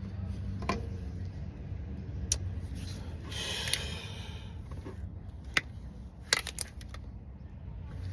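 Scattered sharp metallic clicks and clinks of hand tools and parts being handled while a starter is fitted, with a scraping rustle about three seconds in, over a steady low hum.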